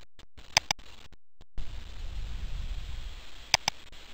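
Computer mouse button clicking: a pair of sharp clicks about half a second in and another pair about three and a half seconds in, over a faint steady hiss, with a low rumble in between.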